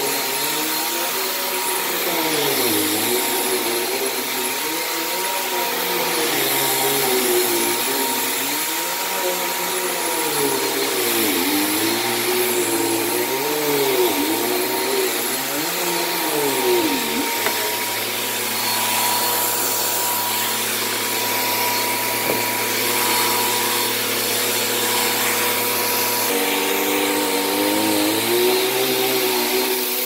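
Bissell PowerForce bagless upright vacuum running on carpet. Its motor pitch wavers up and down every second or two, holds steady for several seconds past the middle, then wavers again near the end.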